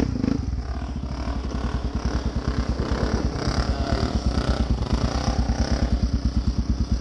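Yamaha sport quad's engine idling, a steady low putter of about eight pulses a second.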